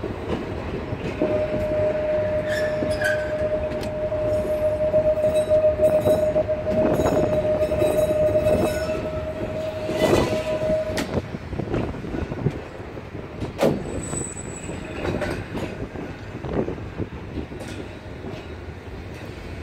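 Blackpool Boat tram 227 running on its rails, with knocks and clatter from the track throughout. A steady high-pitched wheel squeal holds from about a second in until about eleven seconds, then stops.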